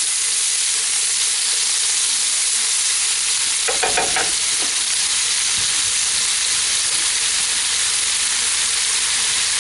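Chopped onions and bacon sizzling steadily in a cast iron Dutch oven, the onions sweating down in the rendered bacon fat.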